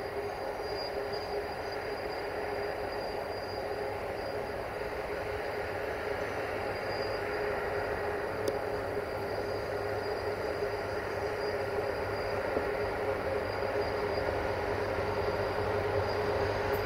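040-EC electric locomotive moving slowly with a freight train of tank wagons: a steady electric hum with a high whine over rumbling wheel-on-rail noise, growing slowly louder.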